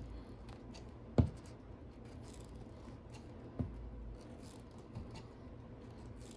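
Pliers gripping and twisting solid copper wires together: faint scraping and scratching with a few sharp clicks, the loudest about a second in.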